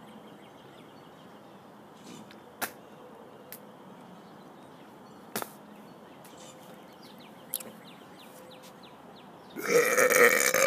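A man's loud, deep burp starting about a second before the end, after several seconds of quiet broken only by a few sharp clicks.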